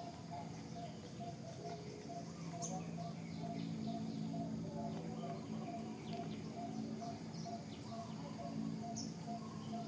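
Birds calling in the background: one bird repeats a short note about three times a second, with scattered brief high chirps from others, over a low steady hum.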